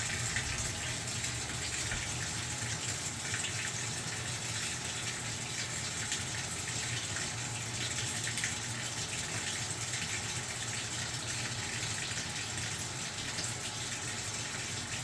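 Washing machine in its spin cycle: a steady whirring rush of noise over a low hum.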